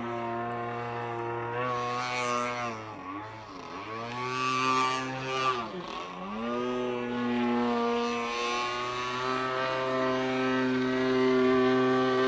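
RC model airplane engine idling with its propeller turning. Twice, about three and a half seconds in and again near six seconds, the note dips sharply in pitch and comes straight back up before settling into a steady idle.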